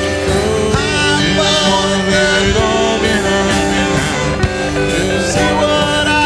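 Rock song playing, an instrumental passage with guitar over a steady beat.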